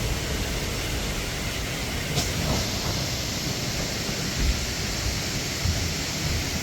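Waterfall's steady rush of falling water, an even hiss that does not let up.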